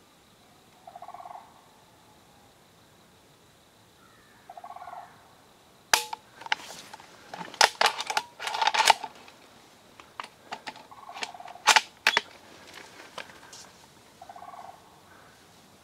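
A cluster of sharp clicks and knocks close to the microphone, handling of the gear in hand, over several seconds in the middle. A short buzzing call repeats at intervals of a few seconds before and after it.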